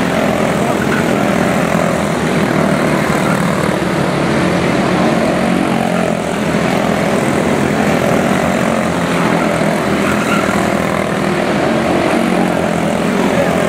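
A pack of quarter midget race cars with single-cylinder Briggs & Stratton Animal engines buzzing around the track at racing speed, several engines overlapping and rising and falling in pitch.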